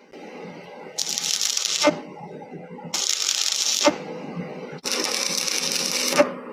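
Stick welding arc on a steel pipe joint, struck and broken over and over in the intermittent spot-welding technique: three bursts of arc sizzling, each about a second long with a quieter gap between, each ending in a sharp snap.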